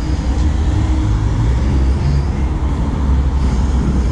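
Cars passing on the street close by, a steady traffic rumble with one car going right past near the end.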